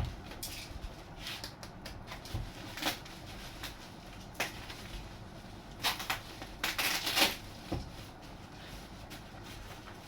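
Packing tape being pulled off the cardboard packaging around a model airplane wing: a series of short rips and rustles, with a longer, louder tearing stretch about seven seconds in.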